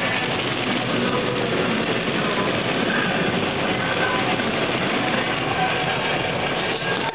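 Steady cabin noise inside a Jeep Wrangler JK driving on the beach: the 3.8-litre V6 engine and tyres give a dense, even rumble with no letup.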